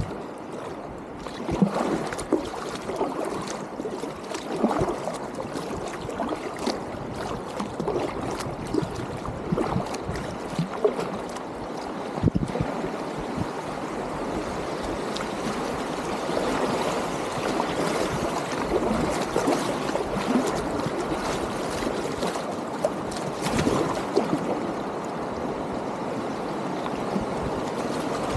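River water rushing and splashing around a packraft as it runs shallow rocky riffles, with irregular sharp splashes through the first half. Toward the end the rush grows steadier and a little louder.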